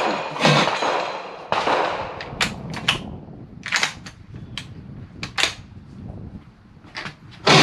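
Sharp metallic clicks and clacks of a Ruger American Go Wild .300 Win Mag bolt-action rifle being handled and loaded, a few seconds apart. A loud blast starts right at the end.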